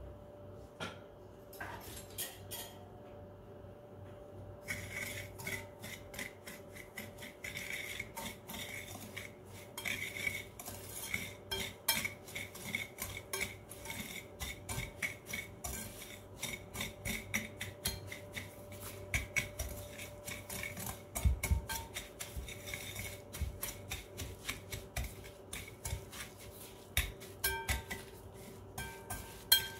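Metal wire whisk beating egg yolks and sugar in a glass bowl, its wires rapidly clicking and scraping against the glass. A few separate taps come first, then steady fast whisking from about five seconds in.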